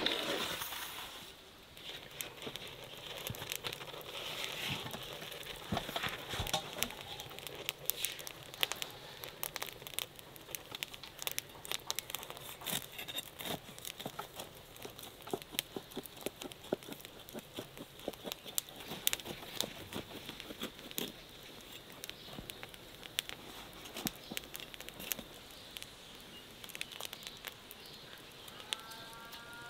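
A knock as a metal baking tray is set down on a wooden board, then a knife cutting through the crisp crust of a freshly baked flatbread-style loaf, the crust crackling with many irregular crunches, and the soft loaf being torn apart near the end. A cow lows briefly right at the end.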